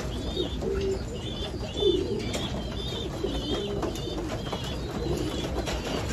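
Domestic pigeons cooing in a loft, low calls overlapping one another, with a steady run of short high chirps and a few light clicks over them.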